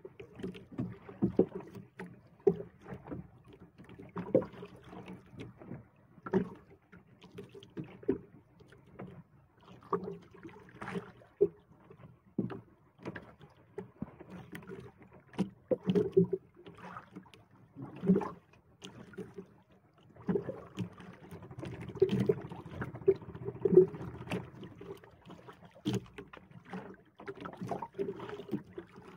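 Irregular knocks and thumps on a small wooden outrigger fishing boat, gear and paddle bumping the hull, with water moving against the boat; the knocks come several times a second, some sharper and louder than others.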